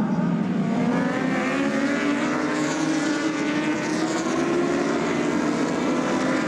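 A pack of endurance-racing superbikes running at high revs, many engines overlapping, with their pitches rising as they accelerate.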